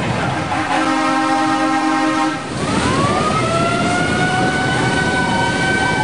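Himalaya carnival ride running with a steady noisy rumble. A held, horn-like tone sounds for under two seconds, then a whine glides up and levels off into a steady high tone.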